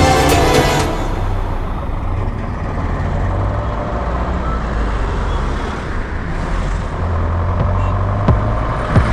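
A motor vehicle running under way: a steady low rumble with road noise. Background music cuts off under a second in and comes back near the end.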